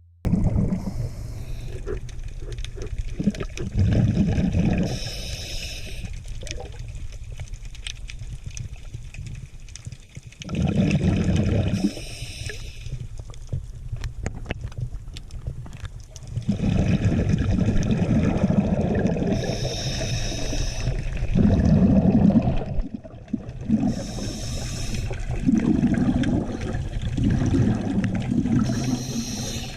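Underwater water noise: a steady low rumble of moving water with bubbling gurgles, and short bursts of hiss and bubbles that come back every few seconds.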